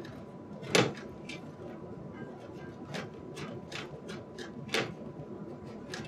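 Scattered small clicks and ticks of a screwdriver and screws being worked out of a metal PC case, with one louder click about a second in.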